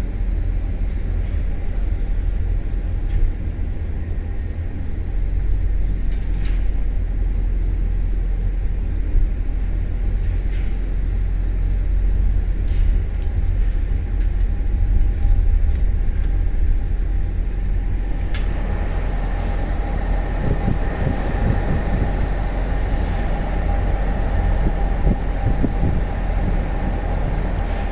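Steady low mechanical rumble with a constant hum; about eighteen seconds in a higher hum grows louder.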